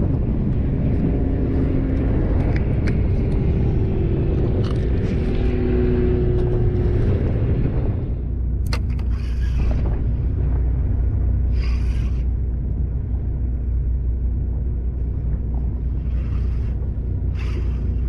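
Boat engine running as a steady low rumble, with several short scraping rustles in the second half.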